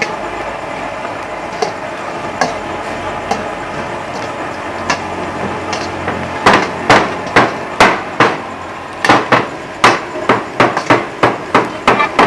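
Wooden pestle pounding lemongrass stalks on a wooden chopping block to bruise them. A few light knocks come first, then from about halfway a run of hard blows about two a second.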